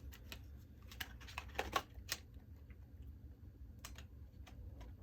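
Scattered plastic clicks and knocks from handling a Sony PD150 camcorder, bunched between about one and two seconds in, with a few more near the end, over a low steady hum.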